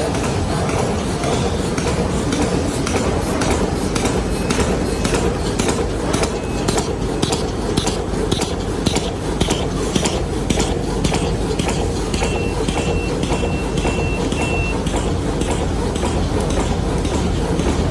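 Drawstring trash bag making machine running: a steady mechanical drone with rhythmic clacks about twice a second from its repeating cycle. A run of short high beeps comes about two-thirds of the way through.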